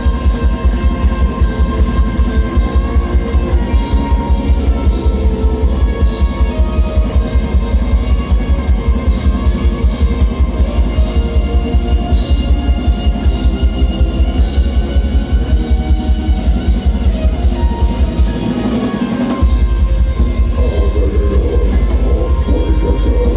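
A death metal band playing live: rapid, even double-kick drumming with cymbals under heavy distorted guitars and bass. The kick drum drops out for about a second a little after eighteen seconds in, then comes straight back.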